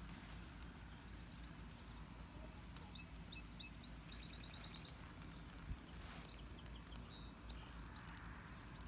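Faint outdoor ambience: distant birds chirping in short, high, rapid trills through the middle, over a low steady rumble, with one soft click a little over halfway.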